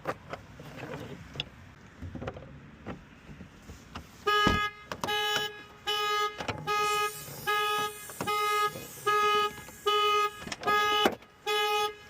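Toyota car alarm set off during a lockout entry, sounding the horn in a steady run of even honks about every 0.7 seconds, starting about four seconds in. Before it there are a few faint clicks and knocks.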